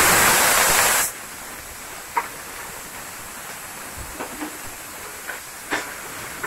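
Chopped onion and chilli frying in hot oil and butter in a steel pan: a loud burst of sizzling just after they go in, dropping after about a second to a steady sizzle. A metal spoon clinks against the pan a few times as it stirs.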